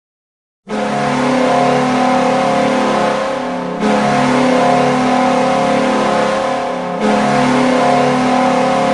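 Hockey arena goal horn sounding three long, steady blasts of about three seconds each, a deep chord-like tone, starting a little over half a second in.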